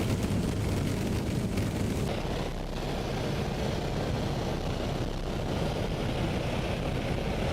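Steady drone of a skydiving jump plane's propeller engine with wind rush. The high hiss of the wind eases off about two seconds in.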